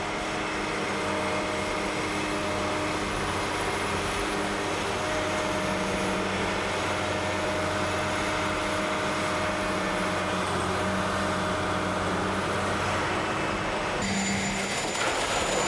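Construction machinery's diesel engine running steadily, with a constant engine hum over a noisy mechanical din; the sound changes abruptly about fourteen seconds in.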